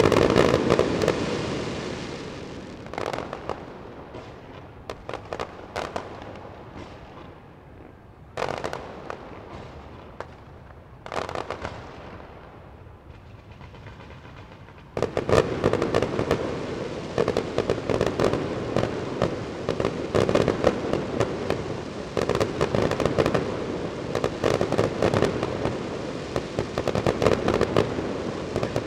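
Fireworks display: a dense run of shell bursts fades to scattered single bangs, then about halfway through a sudden rapid barrage of bangs and crackle sets in and keeps going.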